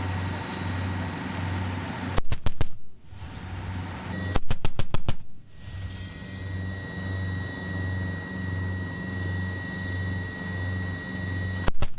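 Gepard anti-aircraft tank's twin 35 mm autocannons firing short bursts of rapid shots: one about two seconds in, a longer one around four and a half seconds in, and another at the very end. A steady low throbbing drone runs beneath the bursts.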